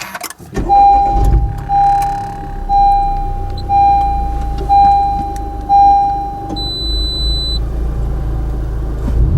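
Honda Civic Type R (FK2) electronic warning chime beeping six times, evenly about once a second, followed by a single higher-pitched beep, over a low steady hum. A few clicks come just before the first beep.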